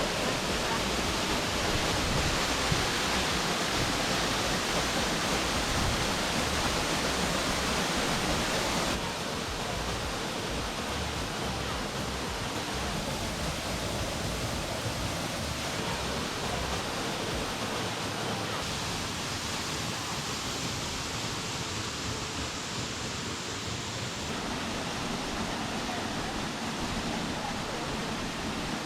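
Eaton Canyon's 40-foot waterfall: water pouring down the rock face into the pool below, a steady rushing noise. It is slightly louder for the first nine seconds or so, then shifts in tone a couple more times.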